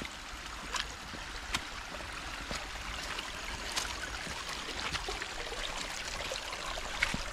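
Shallow stream trickling across a muddy trail, a steady rushing hiss of water, with a few light clicks from steps on the wet ground.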